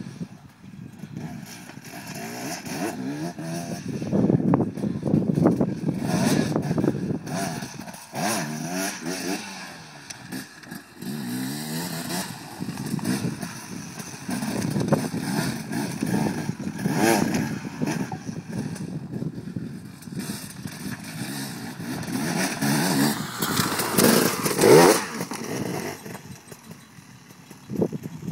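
Dirt bike engine revving up and down in repeated bursts of throttle as the bike is ridden over rocks and logs, its pitch rising and falling. It is loudest about 24 seconds in, then drops back.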